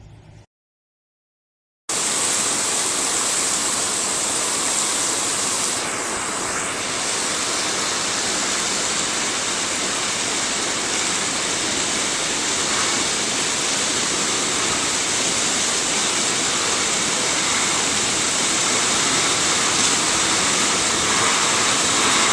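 Fast-flowing floodwater of a swollen river rushing steadily and loudly. It starts about two seconds in, after a brief silence.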